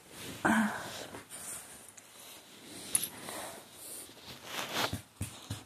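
A dog snuffling and snorting at close range while it licks a person's face, with rustling and knocks from fur and clothing rubbing against the phone.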